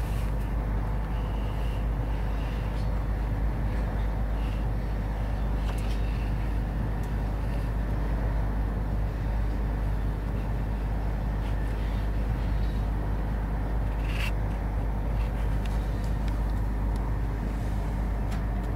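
Steady low rumble of a train running, with a few faint clicks scattered through it.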